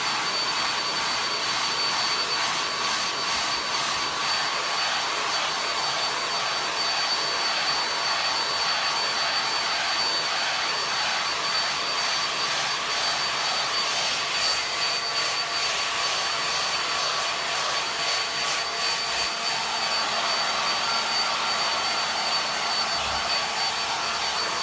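Handheld hair dryer running steadily: a rush of blown air with a steady high-pitched whine.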